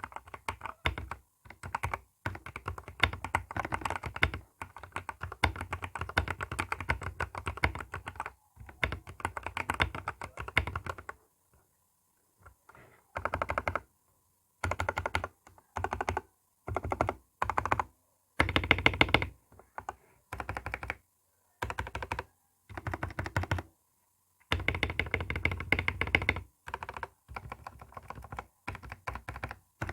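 Tecware B68 mechanical keyboard with lubed Gateron Yellow linear switches being typed on: a steady run of key strokes for about the first eleven seconds, then short bursts of typing separated by brief pauses.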